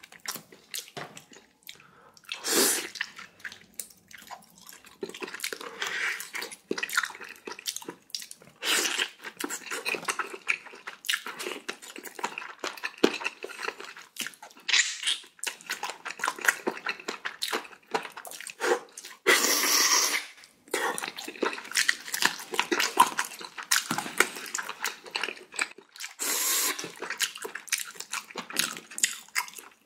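Close-miked eating sounds: wet chewing and slurping of pork-bone soup and radish kimchi, in irregular bursts. A louder, longer burst comes about twenty seconds in.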